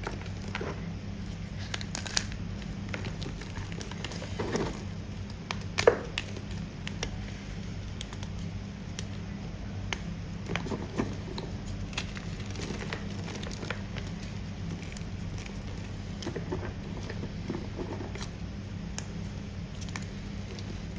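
Firm pasted gumchalk being bitten and chewed close to the microphone: scattered sharp crunches and crackles, the loudest about six seconds in, over a steady low hum.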